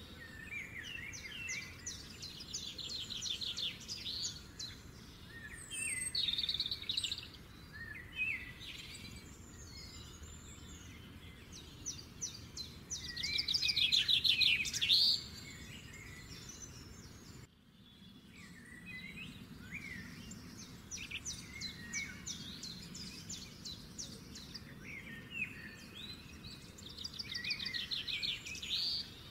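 Birds chirping and singing, in repeated bouts of fast, high trilling notes over a faint steady background hiss. The sound drops out briefly about two-thirds of the way through.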